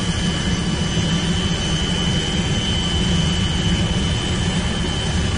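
Police helicopter's turbine engine and rotors running steadily: a low drone with a thin, steady high whine over it.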